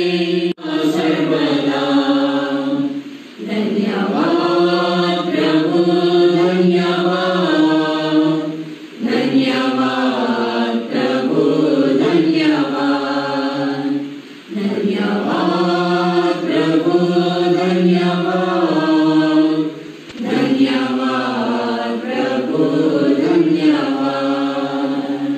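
A small group of voices singing a devotional hymn to St Joseph together, in long held phrases of about five or six seconds, with a short break for breath between each phrase.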